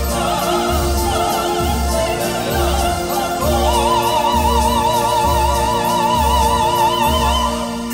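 Operatic soprano and male singer singing a duet in English ("No, no, don't get none on your shirt! Ah ah, more dessert!") over band accompaniment of sustained keyboard chords and a steady low beat. About three and a half seconds in, the soprano holds a long high note with wide vibrato.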